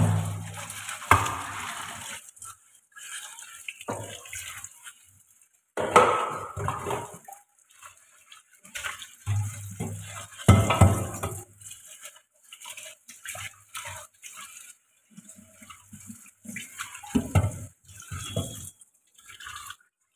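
Dishes washed by hand in a kitchen sink: intermittent scrubbing and splashing water, with heavier bumps of pots and pans being handled a few times.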